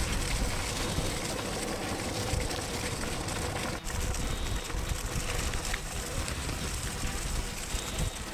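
Longboard urethane wheels rolling fast on asphalt: a steady, rough rumble with wind buffeting the microphone. A brief drop in level about four seconds in.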